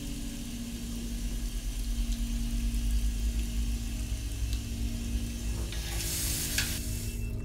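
A toothbrush scrubbing teeth: a steady, fluttering brushing noise over a low hum, with a brief, brighter hiss about six seconds in.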